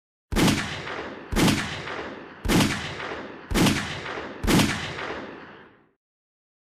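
Five gunshots from a 9mm pocket pistol with a 3-inch barrel firing Barnes TAC-XPD 115-grain +P rounds, about a second apart, each dying away within a second.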